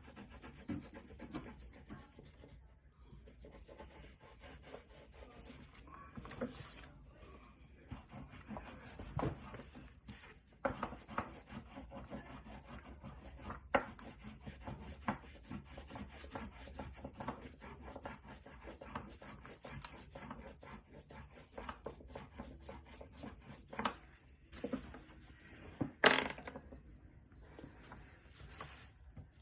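Waxy colouring stick scrubbed back and forth over paper in quick, scratchy strokes, as a background is filled in. A few sharp taps cut through, the loudest near the end.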